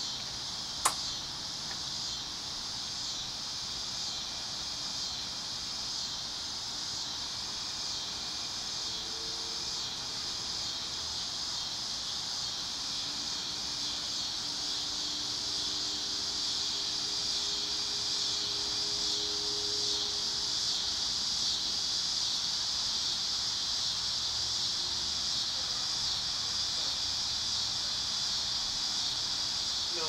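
Steady, high-pitched chorus of insects buzzing without pause, growing slightly louder in the second half. A single sharp click about a second in.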